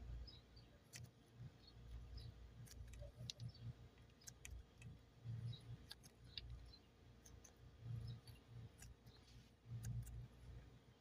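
Faint, irregular light clicks and soft low thuds of clay being handled.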